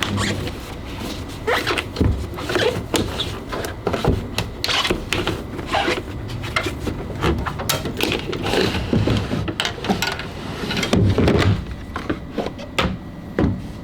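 Irregular knocks, clicks and rubbing from hands cleaning and handling the parts of a washing machine or dryer.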